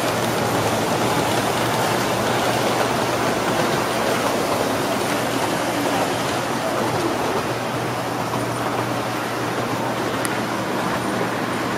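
Model trains running on a layout: a steady rolling whir of small motors and wheels on track, over a steady low hum.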